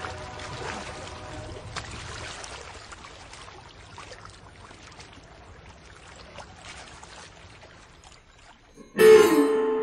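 Soft lapping and trickling of river water along a pebbly shore, with small clicks, fading slowly. About nine seconds in, music starts suddenly and much louder, with ringing pitched notes.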